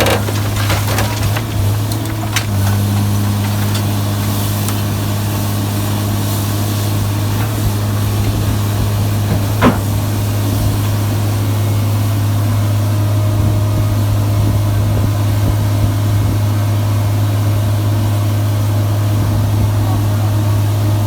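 Sierra 656SL metal shear baler running: a steady low hum from its power unit, with a few sharp metal knocks, the loudest about ten seconds in.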